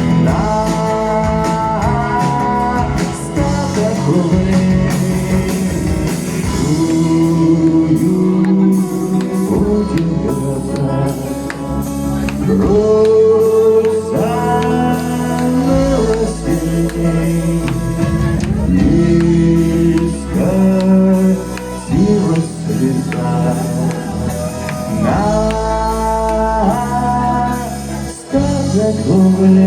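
A man singing to a strummed acoustic guitar in a live acoustic performance.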